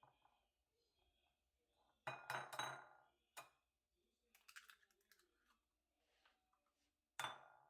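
Kitchen utensils and dishes clinking in a few short groups of knocks, with a brief rattle in the middle and the loudest strike near the end.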